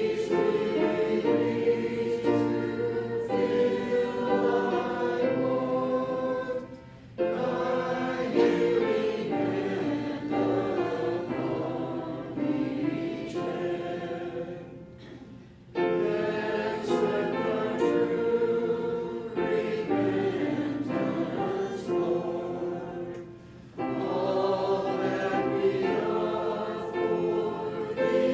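A church congregation singing a hymn together, phrase by phrase, with short pauses between phrases about 7, 15 and 24 seconds in.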